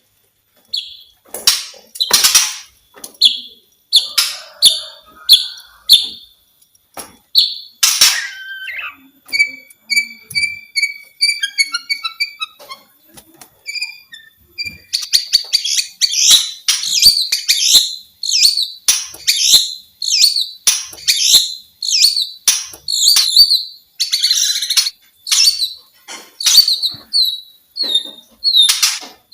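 White-rumped shama singing: loud, quick phrases of short whistled and sharp notes, with a run of rapid repeated notes near the middle, then dense, almost unbroken song from about halfway through.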